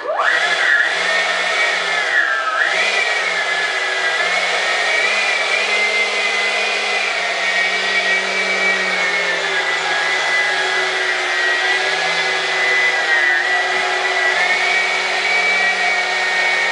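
Dr. Mad Thrust 68 mm 10-blade electric ducted fan spooling up quickly to a loud, high whine, easing off briefly about two seconds in, then holding a steady whine with small wavers in pitch.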